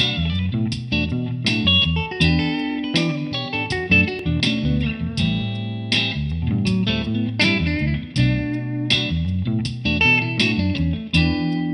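Guitar music: picked notes in a steady rhythm over a moving low line.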